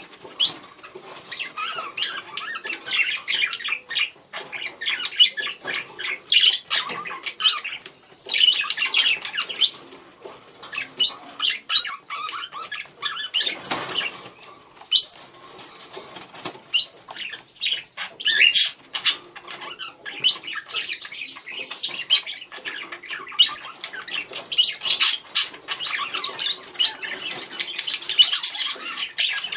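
Budgerigars calling to each other: a steady stream of short, high chirps and warbling chatter, with a brief rustling noise about halfway through.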